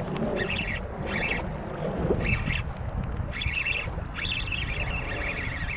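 Penn Clash 4000 spinning reel's drag buzzing in short spurts, then in one longer pull near the end, as a hooked striped bass takes line, over steady wind noise.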